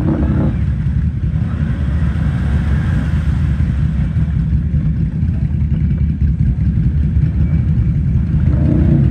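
Can-Am ATV engine running steadily as a low, even drone while the quad is stuck nose-up in a deep mud hole and the rider works it to get it free.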